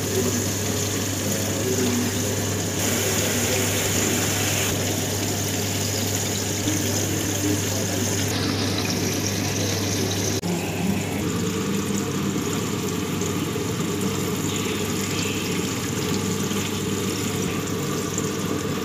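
A steady low mechanical hum with an even hiss over it, its tone shifting abruptly several times.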